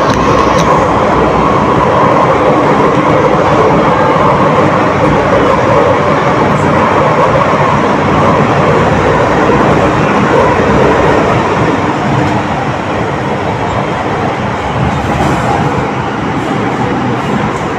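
MTR Kwun Tong Line M-Train heard from inside the passenger car as it runs through the tunnel: a loud, steady rumble of wheels on rails. It becomes a little quieter about two-thirds of the way through.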